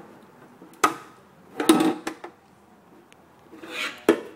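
Plastic motorcycle gas tank fairing cover being handled and turned over on a wooden table: sharp knocks of the plastic about a second in, a cluster of knocks near two seconds and one more near the end, with rubbing and scraping between.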